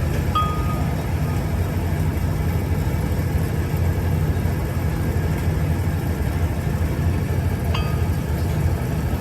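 An engine running steadily with a low rumble. Two short high chirps cut through it, one just after the start and one near the end.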